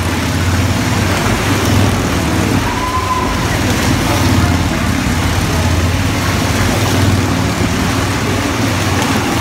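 Wall-of-death motorcycle running steadily as it circles the wooden drum, its low engine drone swelling and easing every couple of seconds.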